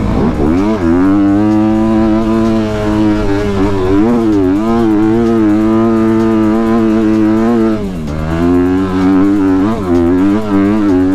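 Dirt bike engine pulling up a dirt trail at fairly steady revs. About eight seconds in the revs drop briefly, then rise and fall with the throttle.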